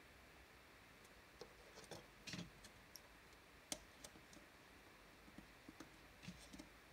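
Near silence with a few faint, scattered clicks and taps from hands handling a plastic model railway coach body. The loudest click comes a little past the middle.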